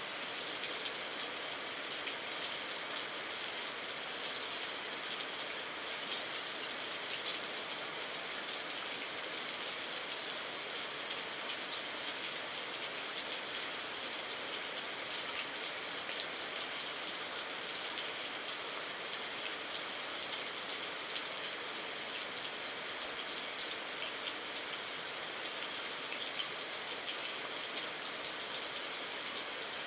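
Steady rain falling, an even hiss with many small drop ticks through it.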